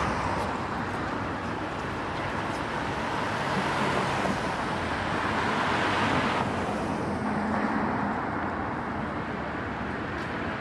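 City street traffic: road vehicles passing, a steady wash of tyre and engine noise that swells twice, the second pass ending sharply a little past halfway.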